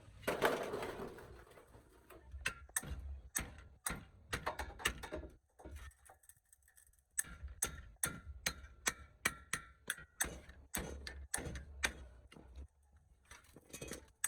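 Hand-tool work on old truck parts: a brief scrape, then a long run of sharp, irregular clicks and taps with a faint metallic ring under some of them.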